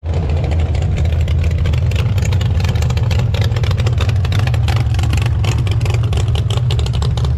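Hot rod's exposed engine running loud with a rapid, choppy exhaust note and a deep steady rumble as the car drives slowly by.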